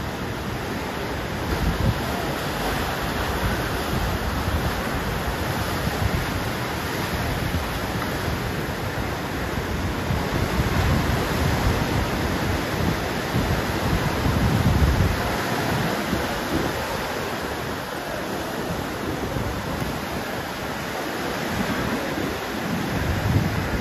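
Ocean surf washing in and out around the pier pilings, a steady rushing hiss with a few heavier surges. Wind gusts buffet the microphone now and then.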